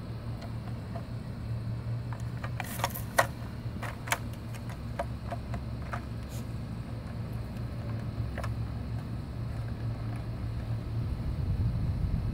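Steady low mechanical hum with scattered light clicks and taps, most of them between about two and four seconds in, as a cat paws and steps on a round plastic cat toy.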